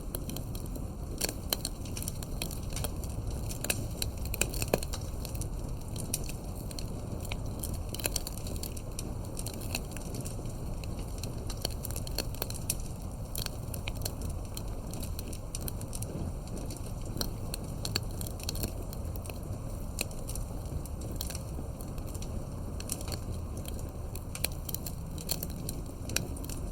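Campfire burning, with many irregular sharp crackles and pops over a steady low rumble of the flames.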